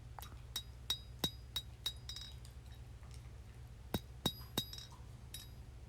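Hand hammer striking hot 1095 high-carbon steel on an anvil, drawing out a knife bevel. There are six ringing blows at about three a second, a pause of about two seconds, then three more blows and one faint tap.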